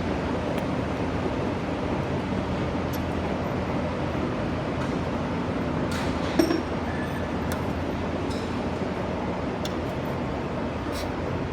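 Steady mechanical running noise with a low hum, with scattered light metallic clinks and one louder knock a little past six seconds in.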